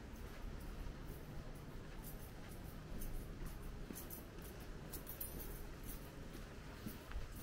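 Footsteps of a person walking: a run of light scuffs every half second or so over a low, steady background hum.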